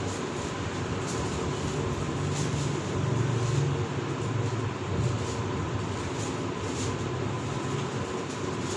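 A steady low rumble with a hiss over it and a thin steady hum, swelling a little in the middle.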